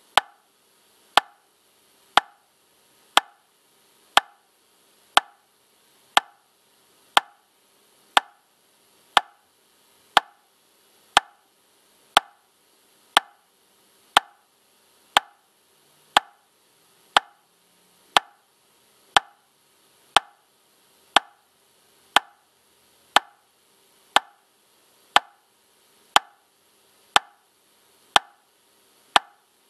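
Metronome ticking steadily at 60 beats per minute: one sharp click each second, each with a brief ring, all evenly loud.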